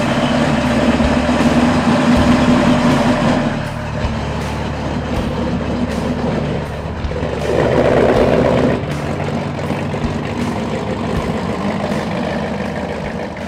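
Freshly rebuilt Mopar 408 stroker small-block V8 running at idle, with a brief rise in revs about seven seconds in that lasts a second or two.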